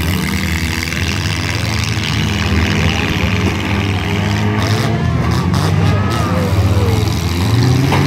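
Demolition derby cars' engines running and revving, several at once, their pitches shifting up and down, with shouting voices faint in the background.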